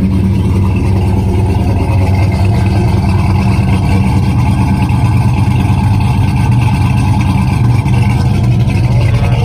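Supercharged 6.2-litre Hellcat Hemi V8 with a custom-grind camshaft, swapped into a 2006 Dodge Magnum SRT8, idling steadily. It is heard at the rear from the exhaust tips and is loud.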